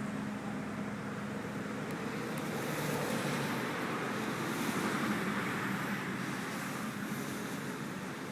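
A vehicle engine running steadily under wind noise on the microphone, with a broad swell in the noise around the middle.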